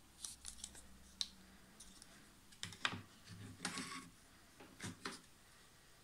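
Plastic Zippo lighter presentation box being handled: several clusters of small clicks and knocks, with a brief scrape a little past the middle.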